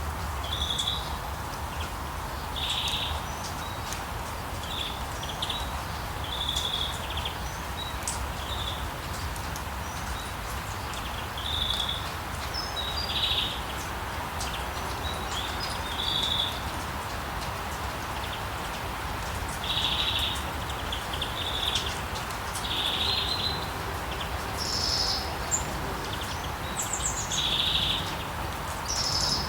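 Steady rain falling on a street, with birds singing short, high chirps every second or two and some higher calls near the end.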